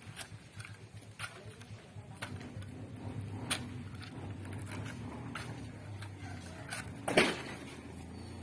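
Irregular sharp knocks and clicks, like handling or stepping on broken concrete rubble, the loudest a single knock about seven seconds in, over a low steady hum.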